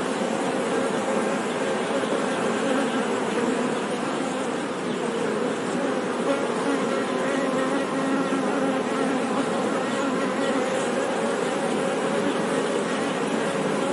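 Many honey bees buzzing together in a steady, dense hum with no pauses.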